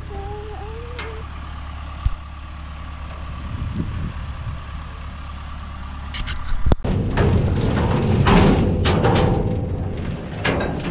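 A vehicle engine running steadily while driving. About seven seconds in, this gives way to loud, irregular metal clanging and rattling from a cattle working chute.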